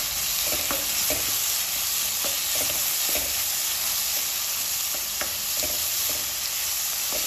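Chopped onion, green capsicum and tomato sizzling in hot oil in a kadhai, stirred with a spatula that scrapes and taps against the pan at irregular moments.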